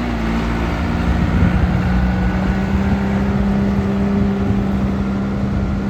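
John Deere 310D backhoe loader's diesel engine running; its note shifts during the first second or so, then holds steady.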